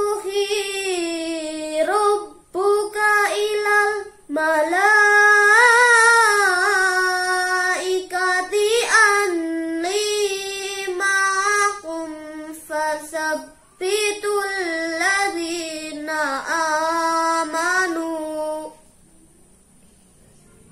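A boy chanting the Quran in the melodic tilawah style, in long ornamented phrases that rise and fall in pitch, with short pauses for breath. The chanting stops about nineteen seconds in, leaving faint room tone.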